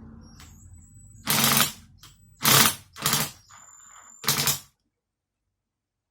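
Four short, loud mechanical rasps about a second apart, then an abrupt cut to silence.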